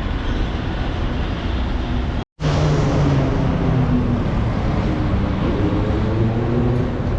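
Steady motor-vehicle noise: engines running amid road traffic, briefly cut to silence a little over two seconds in.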